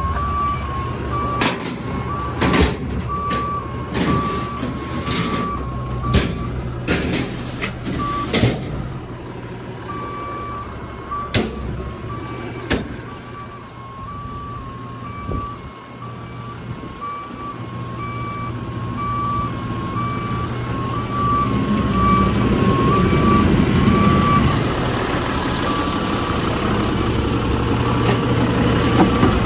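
A truck backup alarm beeps steadily, about one beep a second, over a diesel truck engine running. A run of sharp knocks and clanks comes in the first dozen seconds, and the engine noise grows louder near the end.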